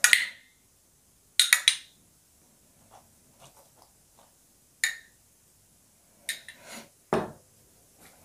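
A small spoon clinking and tapping against a small sauce cup as the sauce is scooped out and spread, in a few separate sharp clicks. Near the end comes a duller, heavier knock as the cup is set down.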